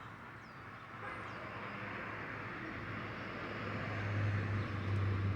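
A car engine running with tyre noise, a low hum and hiss that grow steadily louder.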